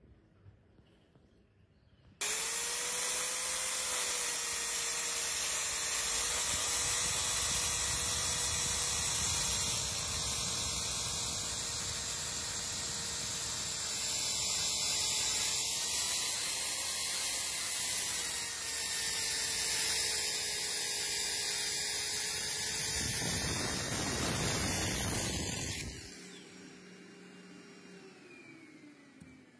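A power tool fitted with a tile-removal blade starts about two seconds in, runs with a steady whine and grinds against ceramic tile. Near the end it is switched off and the whine winds down in pitch.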